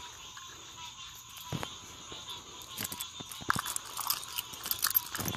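Footsteps crunching irregularly on the ground, with scattered sharp clicks and crackles that come thicker about three to five seconds in.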